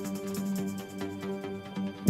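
Electronic background music: held chords over a light, regular ticking beat.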